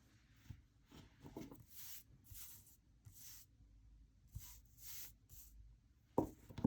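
Muji pen drawing lines on planner paper: a series of short, light scratchy strokes, with a sharper knock about six seconds in.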